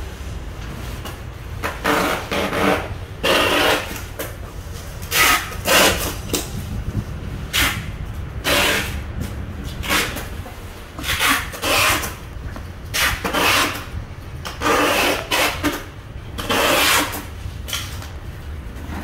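Engine oil pouring from a plastic jug through a plastic funnel into a gasoline chainsaw's tank, coming in a dozen or more irregular noisy surges about a second apart, over a steady low rumble.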